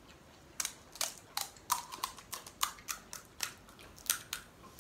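Crisp fried panipuri shell cracking under the fingertips as it is broken open: a quick run of about a dozen sharp crackles and snaps, starting about half a second in.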